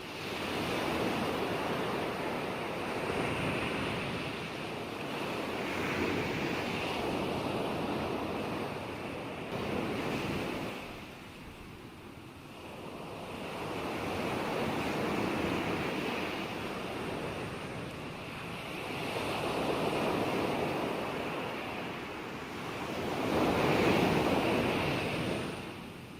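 Ocean surf: waves breaking and washing in as a steady rush that swells and ebbs every few seconds, with a brief lull about halfway through and the loudest surge near the end.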